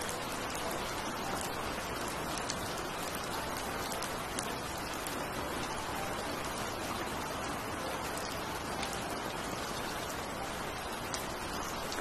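Heavy rain falling steadily, with scattered sharp ticks of drops landing close by.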